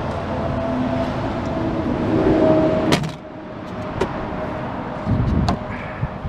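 Engine of a SnowDog tracked snow machine running steadily. It swells for a moment, then after a sharp click about halfway through it drops to a quieter, steady run.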